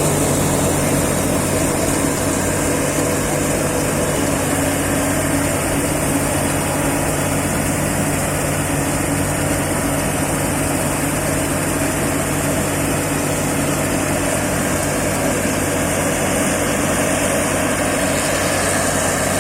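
Rice harvesting machine's engine running steadily at an even pitch.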